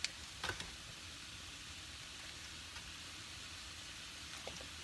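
Vegetables sizzling softly in a dry non-stick frying pan, a steady hiss with no oil or water in the pan. A couple of faint clicks come through, about half a second in and again near the end.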